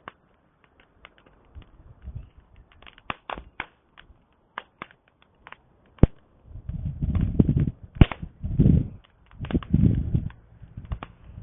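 Campfire crackling with irregular sharp pops, two louder snaps about six and eight seconds in, and bursts of low rumble in the second half.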